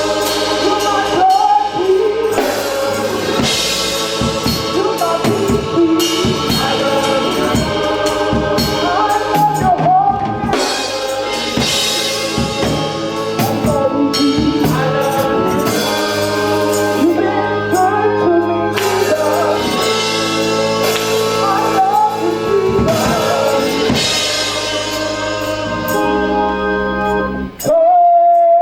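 Gospel song: voices singing over drums and steady bass notes.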